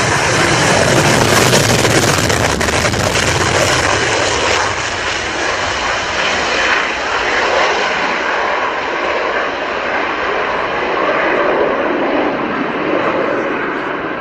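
Jet noise from a Lockheed Martin F-22 Raptor's two afterburning turbofan engines as it passes low and climbs away on afterburner. A loud, even roar, loudest in the first few seconds, then slowly fading.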